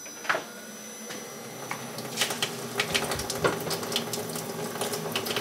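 Water running through newly plumbed pipes and a mixing valve: a steady hiss that grows louder about two seconds in, with scattered clicks and knocks.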